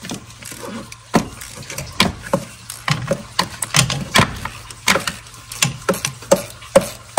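Ratchet on an extension and 5/8-inch spark plug socket being worked to loosen a spark plug on a Toyota 5.7 V8: a string of sharp metallic clicks and clanks, about two a second, as the handle swings back and forth.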